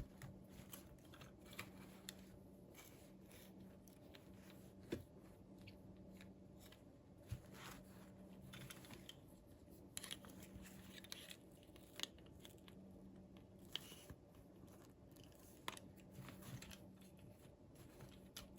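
Faint, scattered clicks and crinkles of small plastic toy pieces and packaging being handled, over a faint low hum.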